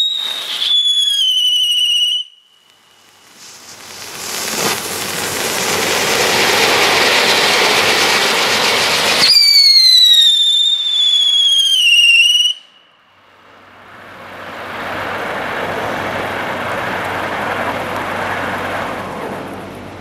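Flashing Fireworks FF1158 Millennial Falcon plastic-ship ground firework burning: a shrill whistle falling in pitch, then a steady spark-fountain hiss that builds up. A second falling whistle comes about nine seconds in, followed by a softer hiss.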